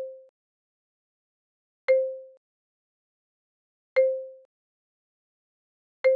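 Short flashcard-change sound effect: a soft click with a brief low tone that fades within half a second, repeating about every two seconds, three times here, as the dot cards switch.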